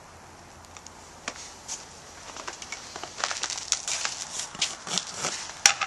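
Dry, irregular crackling and rustling of something being handled: a few scattered clicks at first, becoming dense from about three seconds in.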